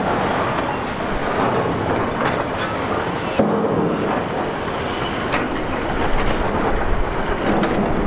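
Large demolition excavator (Liebherr R 960) at work: a steady diesel engine rumble under a continuous clatter and crunch of scrap metal and debris. The sound changes abruptly about three and a half seconds in.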